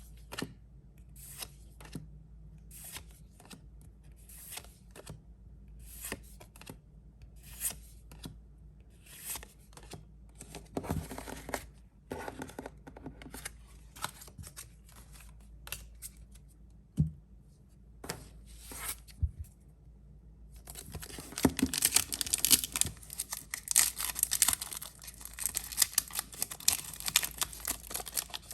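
Scattered light clicks and taps of trading cards and packaging being handled. From about twenty seconds in, a dense stretch of plastic wrapping crinkling and tearing as a Pokémon trading card product is opened.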